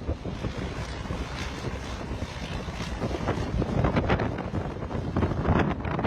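Wind buffeting the microphone: a continuous low rumble with irregular gusts.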